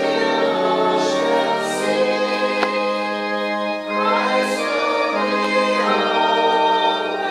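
A hymn: voices singing together over sustained organ chords.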